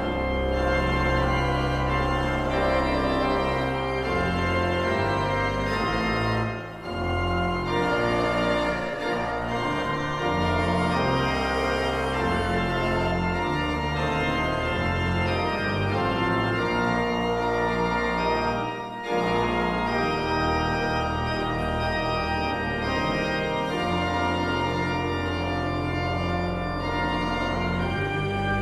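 Church organ playing sustained chords over a deep pedal bass line that moves from note to note, with two short breaks between phrases about 7 and 19 seconds in.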